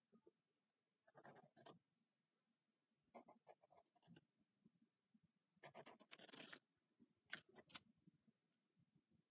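Ballpoint pen scratching across lined notebook paper as it draws, in four short bouts of strokes with pauses between. Faint.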